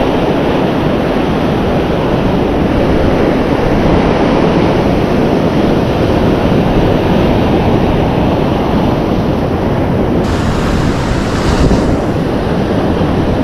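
Ocean surf breaking and washing over a flat rock ledge, with wind buffeting the microphone: a loud, steady rush, with a brighter hissing surge about ten seconds in.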